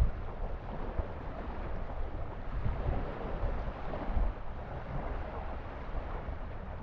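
Wind gusting on the microphone over small lake waves washing onto the shore.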